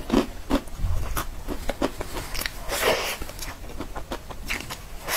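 Close-up eating sounds: biting into and chewing a cream-filled choux puff, with short crackles from the pastry shell and wet mouth sounds.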